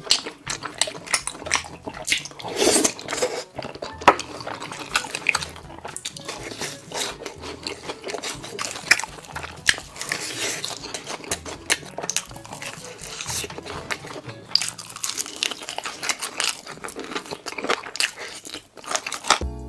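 Close-miked eating: crunching bites into crisp food and chewing, a dense run of irregular crunches and smacks.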